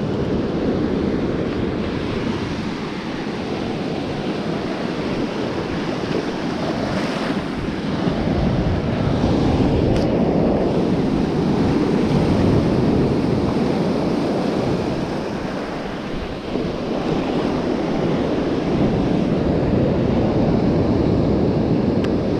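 Ocean surf breaking and washing up a sandy beach, swelling and easing with each wave, with wind rushing over the microphone.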